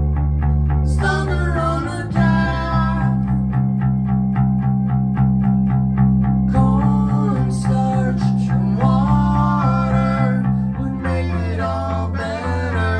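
Rock band playing live: electric bass holding long low notes over a steady drum beat, with electric guitar, and a man singing in short phrases. The bass moves to a new note about two seconds in and again near the end.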